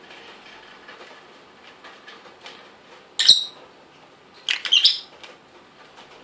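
Rosy-faced lovebird calling: one sharp, high chirp about three seconds in, then a quick burst of several chirps a second later, over faint scattered ticks.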